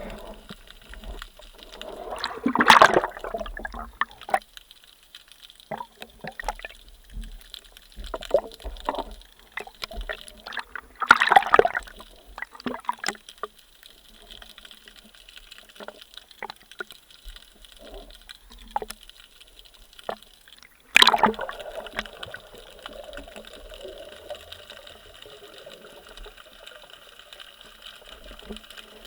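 Water sloshing and gurgling around a spearfisher, with three louder rushes of water about 3, 11 and 21 seconds in.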